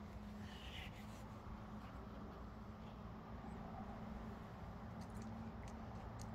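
Faint outdoor night ambience: a steady low hum under soft background noise, with a few faint clicks near the end.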